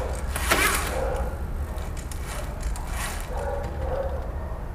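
Bicycle chain and crankset on a mid-drive e-bike turned by hand, the chain running over the large chainring with a few short clicks and rattles.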